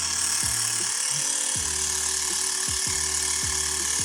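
Xiaomi Mi portable electric air compressor (MJCQB01QJ) running steadily while inflating a motorcycle tyre through the valve: a constant buzzing hiss from its small motor and pump.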